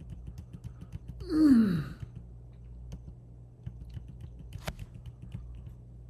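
Computer keyboard keys tapped in quick succession while stepping through photos, with one sharper click near the end. About one and a half seconds in, a man lets out a short sigh or hum that falls in pitch.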